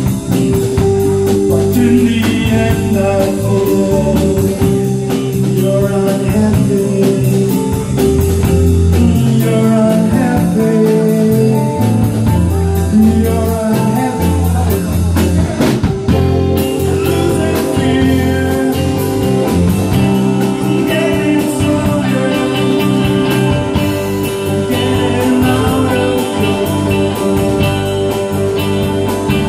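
Live rock band playing a song: drum kit keeping a steady beat, electric guitars, bass and keyboard, with singing over them.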